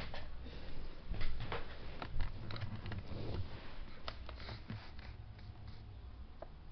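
Rustling with scattered small clicks and knocks, busier in the first few seconds and then sparser, with a few sharp single clicks later on.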